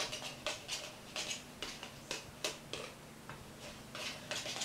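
A paintbrush stirring glue thinned with water in a plastic tub, its handle and bristles knocking and scraping against the sides in quiet, irregular ticks, about two or three a second.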